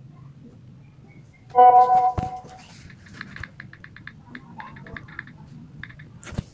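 A short message notification tone with a few steady notes about one and a half seconds in, then a quick run of soft key clicks from a smartphone's on-screen keyboard as a message is typed, with one louder tap near the end.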